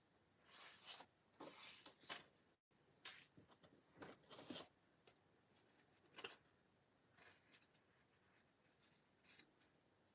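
Faint rustling and crinkling of folded paper slips being handled, folded and opened by hand, in a few short bursts.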